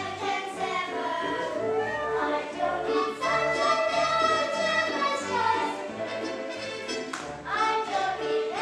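Children singing a show tune together over instrumental accompaniment with a regular bass pulse.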